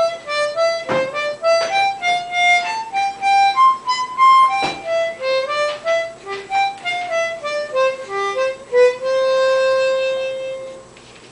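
Harmonica playing a tune of short, quick notes, ending on one long held note that fades out near the end.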